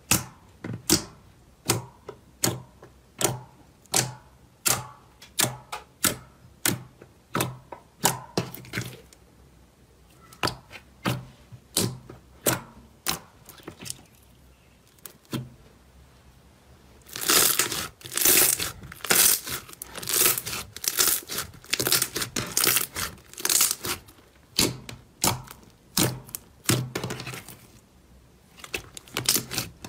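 Blue slime being poked and pulled by hand, giving a run of sharp pops and clicks about one or two a second. About halfway through it turns into louder, denser crackling, then goes back to single pops near the end.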